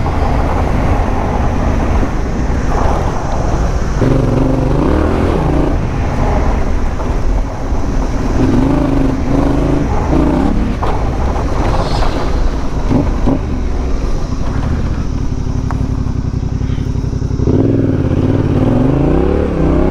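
A 2020 Yamaha Ténéré 700's 689 cc parallel-twin engine pulling the bike along a dirt track, its revs rising and falling again and again with the throttle, and climbing near the end. A steady rushing noise runs underneath.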